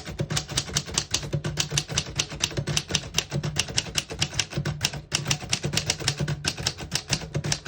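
Rapid typing on a 1936 Royal Junior portable manual typewriter: a fast run of type-bar strikes, about six or seven keystrokes a second, with a brief pause about five seconds in.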